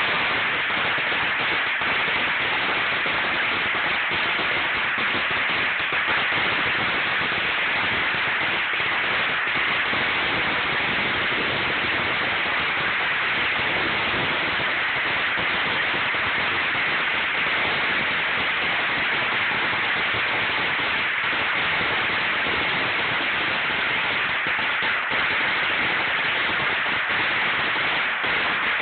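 A long string of firecrackers going off without a break, the bangs so rapid and many that they merge into one steady, dense crackle.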